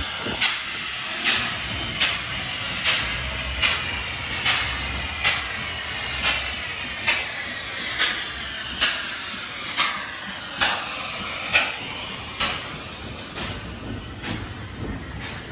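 Narrow-gauge steam locomotive Gr-280 working slowly along under steam: a sharp exhaust chuff a little faster than once a second over a steady steam hiss. From about twelve seconds in, the engine has passed, and quicker, lighter wheel clatter follows as the coaches roll by.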